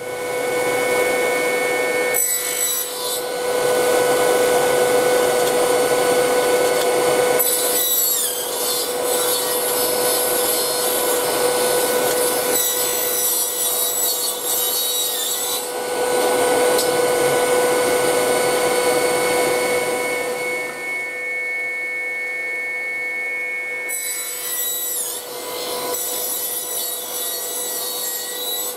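Bench-mounted circular saw running and cutting MDF offcuts several times, each cut a stretch of loud rasping wood noise with a high whine falling away after it, over a steady machine hum.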